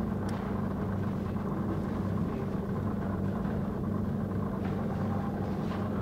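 Steady low electrical hum from the lab equipment, with a faint click about a third of a second in and another near the end as a small metal coaxial connector is handled.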